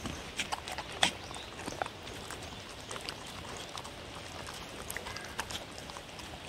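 Two dogs licking and chewing food off a paper plate, making irregular wet smacks and clicks, with one sharper click about a second in.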